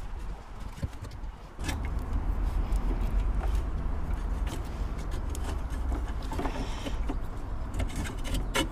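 Clicks and knocks of a diesel fuel filter and its plastic bracket being handled and moved. About a second and a half in, a steady low engine rumble starts and carries on under them.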